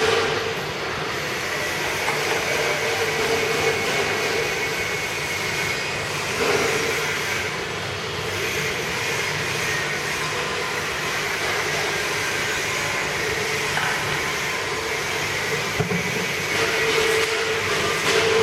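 Powder grinding machine running steadily, a continuous mechanical whir with a steady hum and a fainter high whine over it.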